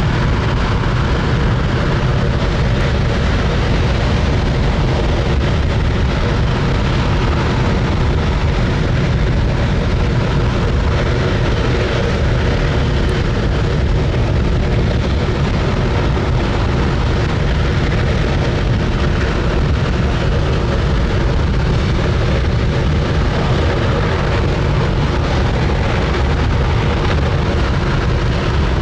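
Space Shuttle Main Engine, a liquid-hydrogen and liquid-oxygen rocket engine, firing steadily on a test stand. It makes a loud, continuous, deep exhaust noise with no change in level.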